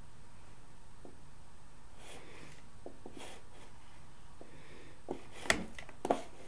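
Faint steady room hiss with soft rustling, then a few sharp clicks near the end, the loudest about five and a half seconds in and another just after six.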